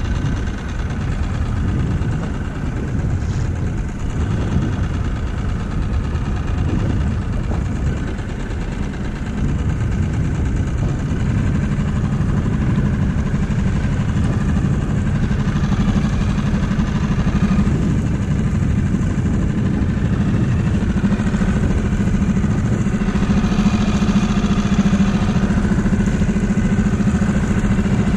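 Small outboard motor on an inflatable dinghy running steadily at low trolling speed, its note a little stronger from about eleven seconds in.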